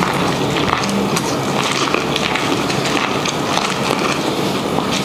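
Steady rushing noise peppered with many small clicks and crackles, as two people bite into and chew boiled corn on the cob.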